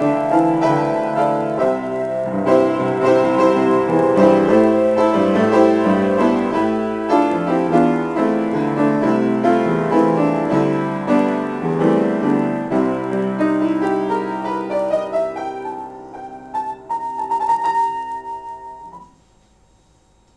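Solo grand piano improvisation: full, busy chords that thin out near the end into a few separate high notes, and then the playing stops and dies away as the piece ends.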